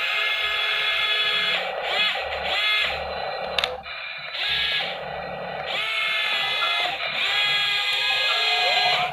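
Electric motors of a toy RC excavator whining, stopping and starting and shifting in pitch as the machine works. One sharp click comes partway through.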